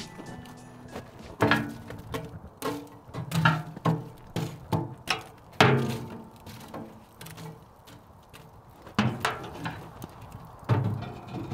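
Irregular knocks and thuds of objects being handled and set down, some with a short ring after them, the loudest about six seconds in.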